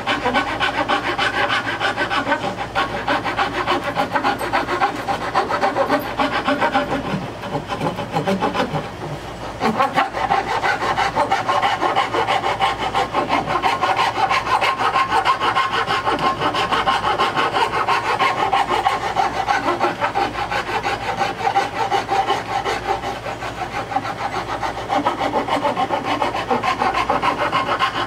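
Hand file rasping back and forth across the edge of an oak board in steady repeated strokes, with a brief pause about nine seconds in.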